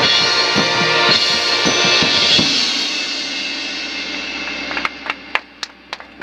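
High school marching band's brass and drum line playing the closing chords of its show, with several drum hits and a cymbal crash that rings and fades out over a few seconds. Near the end a few people start clapping.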